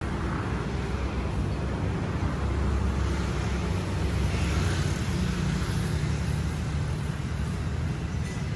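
Road traffic noise: a steady low rumble of passing vehicles that grows a little louder for a few seconds in the middle.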